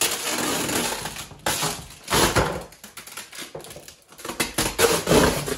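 Hollow plastic toddler slide being handled and pulled apart, the red plastic chute rubbing and knocking against its blue plastic ladder base. A long stretch of scraping and rustling noise opens, then shorter bursts come about two seconds in and near the end.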